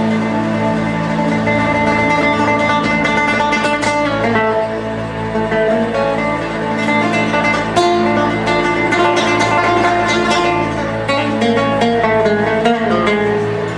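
Live ensemble music led by an acoustic guitar playing a plucked melody over a steady low drone.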